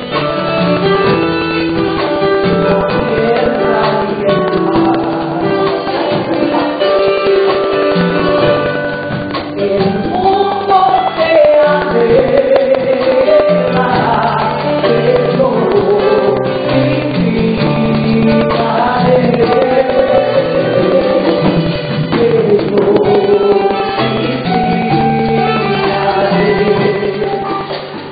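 Live worship music: a Spanish-language praise song sung by worship leaders over a band with keyboard and drums, played steadily.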